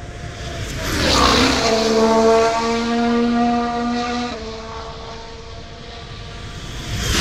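Formula 1 car passing close by at speed about a second in, then its engine note held at a steady pitch as it runs on, stepping down to a lower pitch about four seconds in. A second car starts to pass near the end.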